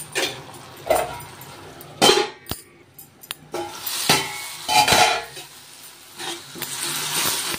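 Spatula scraping and knocking against a metal kadai as a thick tomato curry is stirred and mashed, in irregular strokes about once a second.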